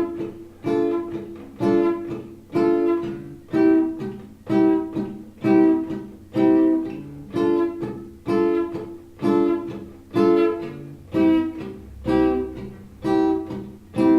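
Instrumental music: a plucked string instrument, guitar-like, playing single notes about once a second, each one fading before the next.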